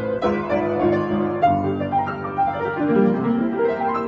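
Piano music playing, a slow run of held notes and chords.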